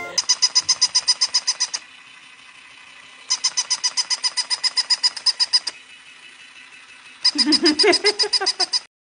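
A battery-operated plush toy puppy giving out rapid, high-pitched electronic chirps, about ten a second, in three bursts with short pauses between them. During the last burst a lower, wavering sound joins in.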